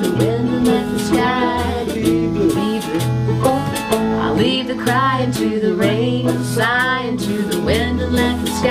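Old-time country tune on acoustic guitar and five-string banjo, strummed and picked together over low bass notes, with a voice singing along without words.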